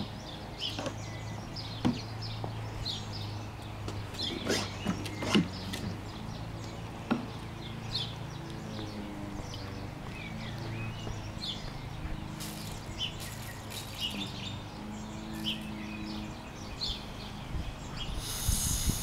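Outdoor ambience: small birds chirping on and off over a steady low hum, with a few sharp knocks in the first half and a brief high pitched sound near the end.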